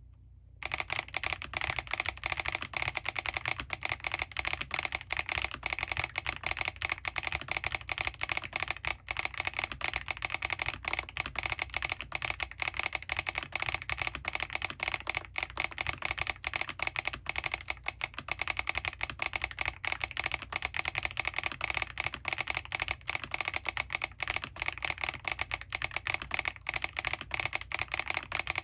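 Fast, continuous typing on a Smurve80 mechanical keyboard with lubed Keygeek Oat switches, doubleshot PBT keycaps, an aluminium plate and full foam, its solenoid clicking with the keystrokes. The typing starts about half a second in.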